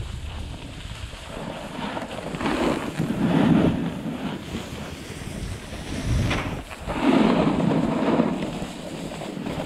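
Wind rushing over a GoPro's microphone while skiing downhill, with the scrape of skis on packed snow swelling and fading with the turns, loudest twice.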